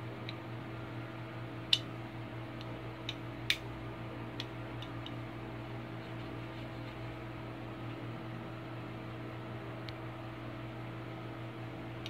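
Sharp metallic clicks of a stainless steel multi-tool as its tools and blade are unfolded and handled, several in the first five seconds, the loudest about two seconds in, and one more near the end, over a steady mechanical hum.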